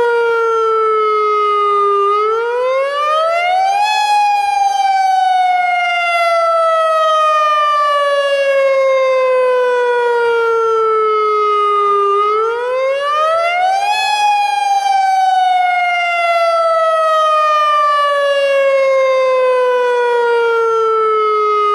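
AHAB tsunami warning siren sounding its wail, the tone used for a real tsunami emergency. One loud tone rises quickly over about two seconds, then glides slowly down for about eight; this happens twice.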